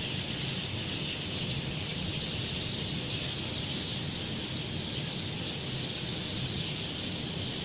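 Steady outdoor dawn ambience: a dense, even, high-pitched chorus of chirping that never breaks, with a faint low rumble beneath.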